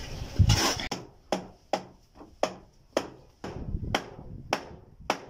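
Hammer driving nails into wood with steady blows, about two a second, each strike ringing briefly. A single heavier thud comes about half a second in, before the run of blows.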